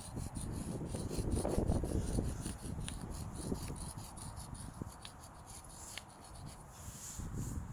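Chalk rubbing and scraping on a drawing surface in quick, repeated strokes, with wind rumbling on the microphone underneath.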